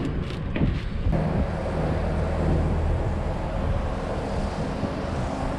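Steady low rumble of machinery running, mixed with wind noise on the microphone, with a couple of brief knocks in the first second.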